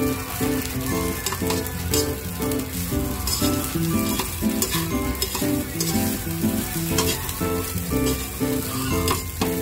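Fried rice sizzling in an aluminium wok while a metal spatula stirs and scrapes it around the pan in repeated strokes, with background music playing underneath.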